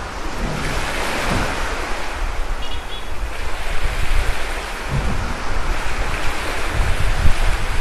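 Wind buffeting the microphone: a steady rush of noise with an uneven low rumble.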